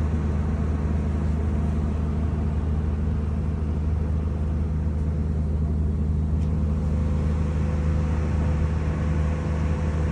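An engine running at a steady, unchanging speed: a constant low drone with an even hum.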